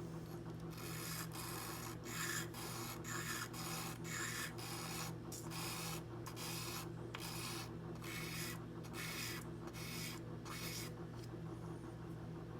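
Tweezer tips being rubbed back and forth over 600-grit sandpaper, a quick rasping scrape at about two strokes a second that stops near the end. The tips are being ground down to take out a small chip on one tip.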